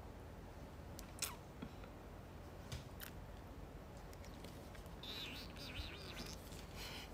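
Faint handling noise from a hammer-shaped lightstick being waved and shaken close to a phone microphone: a few scattered clicks, one with a short falling chirp about a second in, then a stretch of rustling near the end, over a low steady hum.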